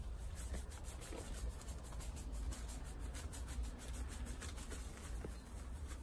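A bag of refractory cement being shaken out over a dry mix in a wheelbarrow: soft, irregular rustling of the bag as the powder sifts out.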